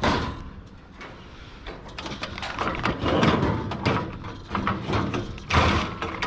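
Irregular knocks, clicks and rattles of objects being handled, with a louder bump near the end.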